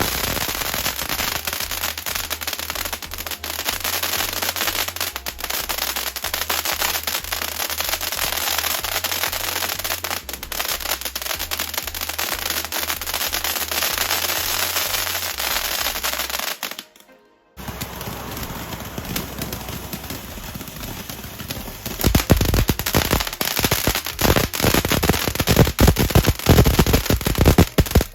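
Consumer firework crackling, a dense rapid run of pops and cracks. It cuts off suddenly about 17 seconds in, then the crackling starts again and grows louder about 22 seconds in.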